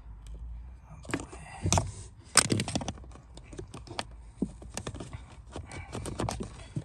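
Hard plastic clicking and knocking as a hand works the clip and cover of a Peugeot 208's cabin pollen filter housing loose, with two louder knocks a couple of seconds in and a run of lighter ticks after.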